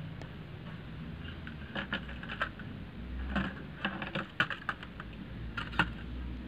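Graphite pencil sketching on paper: irregular light ticks and short scratches as the point touches down and moves over the sheet, over a faint steady low hum.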